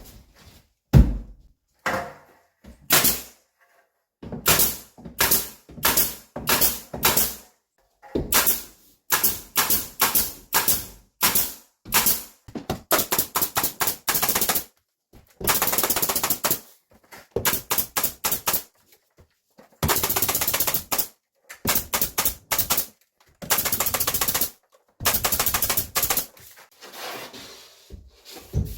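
Power tool fastening gypsum board to the wood framing: repeated short bursts of rapid clatter, many lasting about a second, with brief pauses between fasteners.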